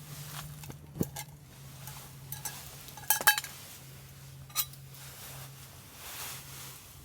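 Camp cookware being handled: metal pots and utensils clinking, with a sharp clink about a second in, a quick cluster of clinks about three seconds in and another single clink a little later.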